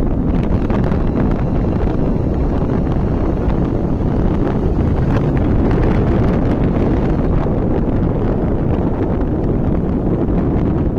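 Steady, heavy wind noise buffeting the microphone of a motorcycle riding at speed, with the bike's engine and road noise underneath.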